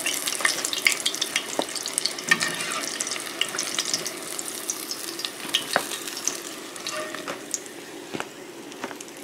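Hot oil sizzling in a cast-iron skillet as battered, pan-fried egg pieces are lifted out with a metal slotted spatula, with scattered sharp pops and clicks. The sizzle grows quieter as the pan empties.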